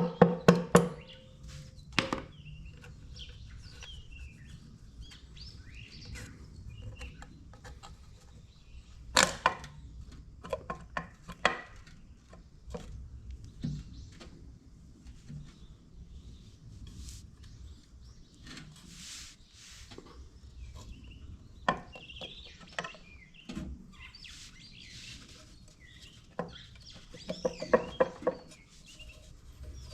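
Intermittent clinks and knocks of tools and parts on a small engine's metal castings during a teardown, with a rapid rattling burst near the end. Birds chirp faintly in the background.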